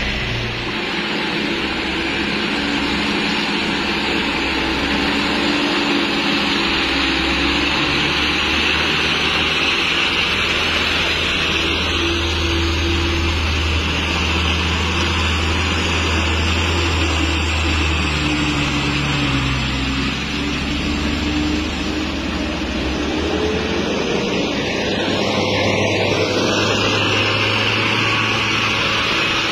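Diesel engines of light dump trucks, one a Mitsubishi Fuso, running steadily as the trucks drive past on a wet road. The engine note rises a little in the last third.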